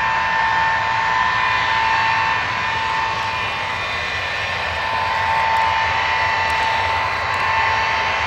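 Ilyushin Il-62MGr's four rear-mounted Soloviev D-30KU turbofans running at low power as the jet rolls slowly along the runway: a steady whine with two high tones over a low rumble, swelling and easing slightly.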